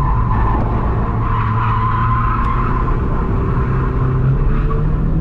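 Drift car sliding through a corner, heard from inside the cabin: the engine runs steadily under load while the tyres squeal. The squeal is strongest in the first three seconds and fades out about three and a half seconds in.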